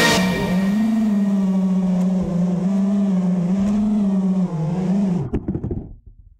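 Brushless motors of a 5-inch FPV racing drone, heard through its onboard camera, humming steadily at low throttle with small wavers in pitch. A little after five seconds in there are a few knocks as it touches down, and the motors spin down and stop.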